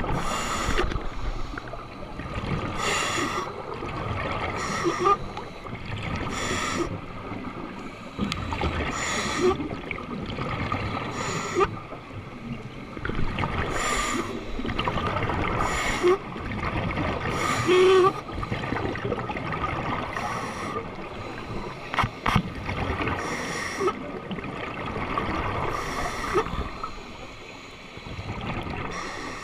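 Scuba regulator breathing heard underwater through a camera housing: a bubbling, hissing burst of breath roughly every two seconds over a steady watery wash, with one sharp click a little after the middle.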